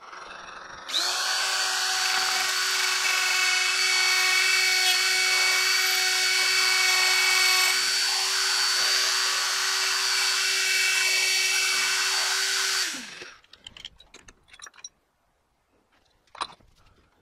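Hercules quarter-inch electric die grinder, rigged as a lathe tool post grinder, switching on about a second in and running with a steady high whine and a grinding hiss as its stone dresses the point of a small center punch. Near the end it is switched off and winds down, followed by a few light clicks.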